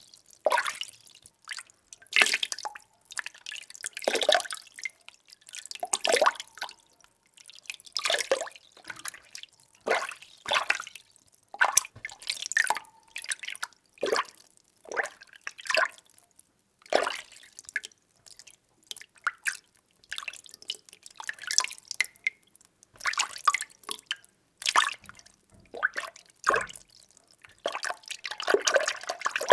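Water being stirred by hand in a container: irregular sloshes and small splashes, roughly one every second or two, with short quiet gaps between them.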